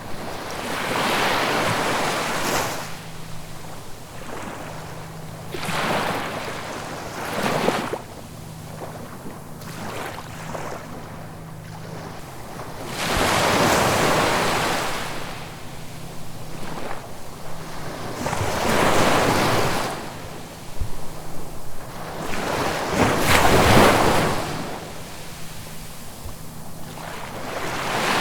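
Ocean waves breaking and washing in, about six surges that swell and fade every few seconds, the loudest near the end.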